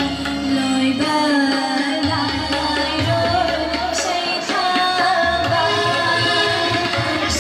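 A young woman singing a song into a microphone over instrumental accompaniment with drums, holding long notes in a wavering melodic line.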